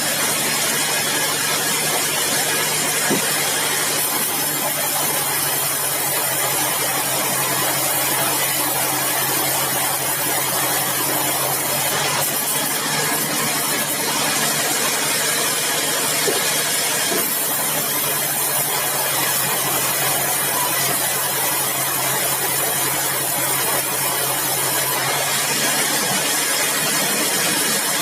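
Sawmill machinery running steadily: an engine drone under a continuous high hiss.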